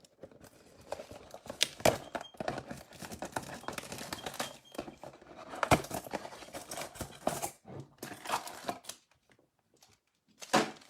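Crinkling, tearing and scattered clicks of a trading-card box being opened and its foil packs handled. The rustling stops about nine seconds in, followed by one short sharp click near the end.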